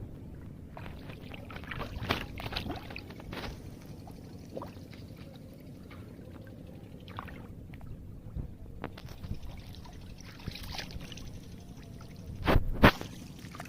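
Water sloshing and pouring over a steady low rumble, with scattered small clicks and two loud thumps about half a second apart near the end.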